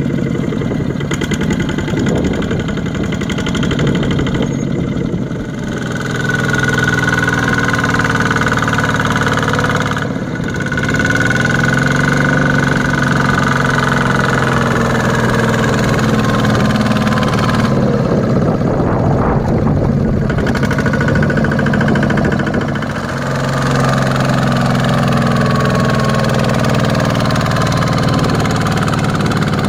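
Single-cylinder diesel engine of a two-wheel walking tractor running hard under load, straining to drag a loaded rice trailer through deep mud while its wheels spin. Its pitch rises and falls with the throttle, and it eases off briefly three times.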